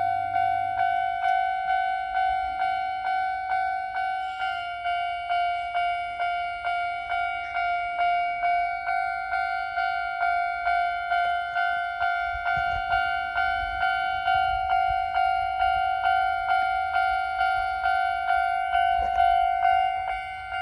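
Japanese railway level-crossing alarm bell ringing "kan-kan" in an even rhythm, a little over two strikes a second. A low rumble joins in about twelve seconds in and fades near the end.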